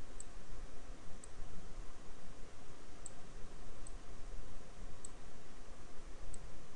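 Computer mouse button clicking: about six light, sharp clicks spaced a second or so apart as controls are selected and dragged, over a steady background hiss and low hum.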